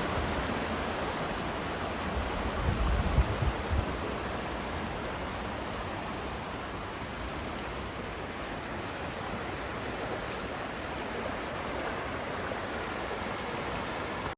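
Creek water running steadily over a small waterfall, an even rushing hiss. A few brief low rumbles come through about three seconds in.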